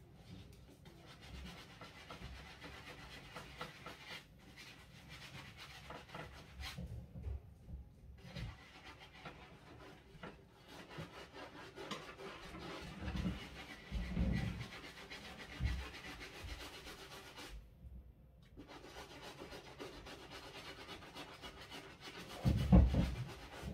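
Soft-bristle brush scrubbing the Primeknit upper of a Yeezy Boost 350 sneaker: a steady rubbing hiss in runs of strokes broken by short pauses. A few dull thumps come from handling the shoe, the loudest near the end.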